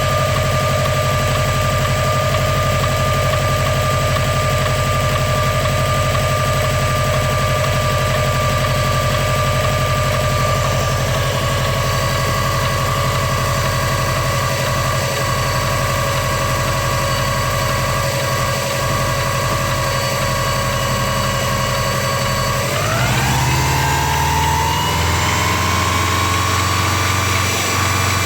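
Car engine idling with a steady high-pitched whine riding over its rumble, the odd noise the owner is asking about. Near the end the revs rise and the whine climbs in pitch with them, then holds there.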